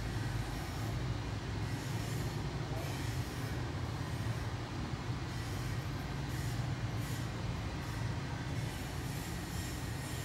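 Steady low mechanical hum with a hiss over it, and soft rustling that comes and goes.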